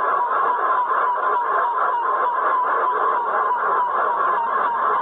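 A rapid, even series of high beeps, about four a second, on an old field tape recording with steady hiss. It is the repetitive beeping that witnesses attributed to a UFO.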